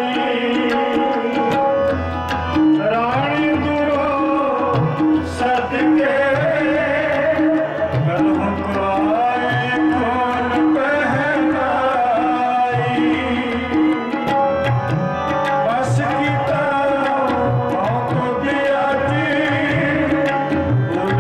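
Sikh kirtan: a voice singing a Gurbani hymn in gliding phrases over a held harmonium drone, with tabla playing a steady rhythm underneath.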